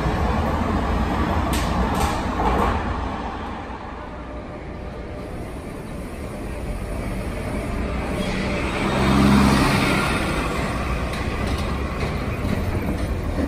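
Rumble of a San Francisco Muni light rail train pulling into an underground subway station, with a few sharp clicks in the first two seconds. Then street traffic, where a bus passing close swells to the loudest point about two-thirds of the way through, with a low hum.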